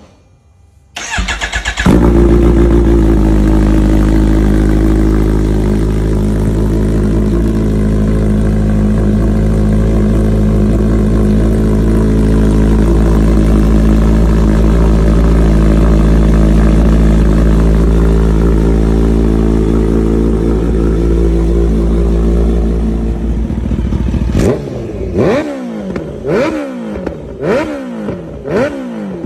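Kawasaki Ninja H2's supercharged inline-four through a Vandemon aftermarket exhaust, started from cold: the starter cranks briefly about a second in, then the engine catches and settles into a loud, steady fast idle. Near the end the throttle is blipped in a run of about six quick revs.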